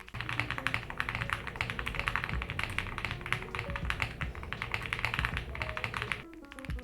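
Fast, continuous typing on a JRIS65 custom mechanical keyboard with hand-lubed Gateron CM 3.0 linear switches, a POM plate, an aluminium case and PBT keycaps: a dense run of keystrokes that stops about six seconds in.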